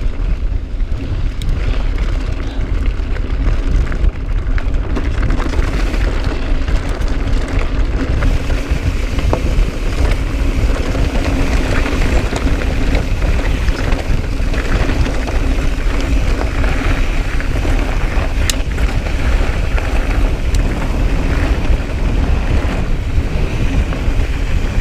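Wind buffeting an action camera's microphone while a mountain bike rolls along a dirt trail: a steady rushing rumble with scattered rattles and clicks from the bike.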